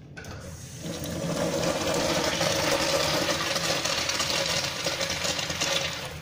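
American Standard urinal flushing: a steady rush of water over the urinal screen that builds about a second in and falls away near the end.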